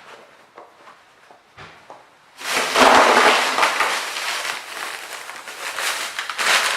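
Loud crinkling, crackling rustle that starts suddenly about two and a half seconds in, like a bag being handled. Before it there are only a few faint clicks and knocks.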